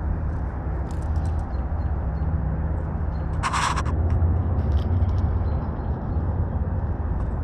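Steady low rumble, with faint scattered clicks and a short hiss about halfway through, as fishing tackle is handled while a new rattling Ned rig lure is put on.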